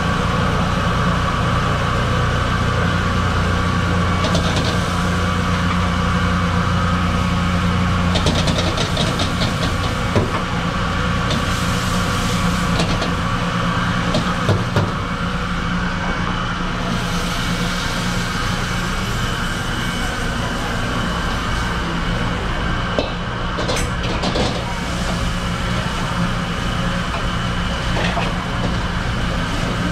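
Steady roar and hum of a commercial gas wok range and its extraction, with scattered clatters of a metal ladle against the wok.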